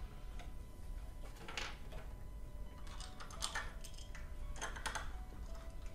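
Light, scattered clicks and taps of small metal parts being handled and fitted: an aluminium extrusion profile and screws set against a CNC machine's corner plate.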